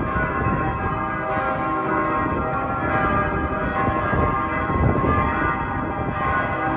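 Church bells of St. Vitus Cathedral ringing, their tones overlapping and hanging in the air without pause.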